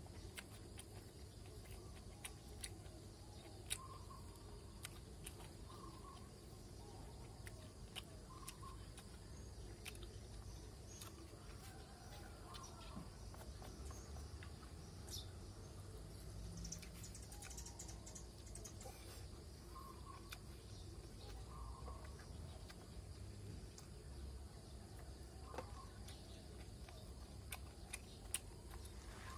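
Faint outdoor ambience with a steady low rumble, scattered small clicks and taps from eating out of a takeaway box with a plastic spoon, and short bird chirps every few seconds.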